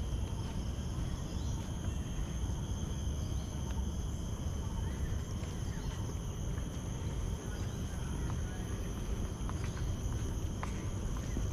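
A steady chorus of insects singing in several high, unbroken tones, over a low rumble from the moving microphone. A few soft clicks come near the end.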